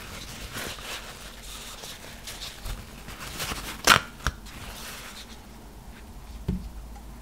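Hands rustling and handling a roll of soft tissue paper close to the microphone, pulling and flapping the sheets, with one sharp, loud crisp snap of the paper about four seconds in and a soft thump near the end.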